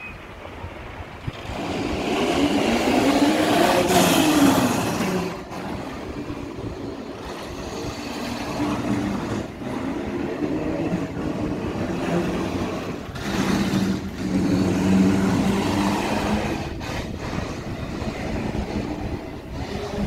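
Steel roller coaster train rumbling along its track, swelling loud twice as it passes: once from about two seconds in and again from about thirteen seconds in.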